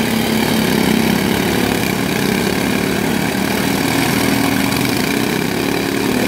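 Several riding lawn mower engines running at once: a steady drone of overlapping engine pitches.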